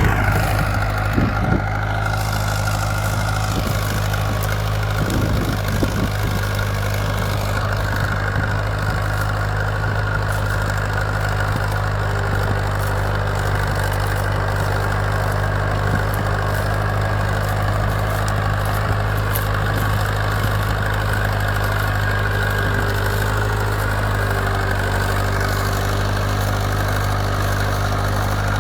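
County Super 4 tractor's Fordson Super Major four-cylinder diesel running steadily while pulling a Ransomes TS59 three-furrow plough, with a few knocks in the first several seconds.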